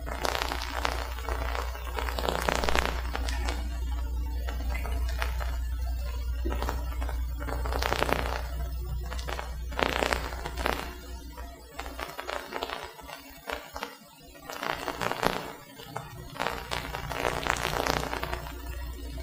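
Background music on a worn videotape soundtrack, under a steady low hum and irregular crackling noise; the hum drops away for a few seconds about two-thirds of the way through.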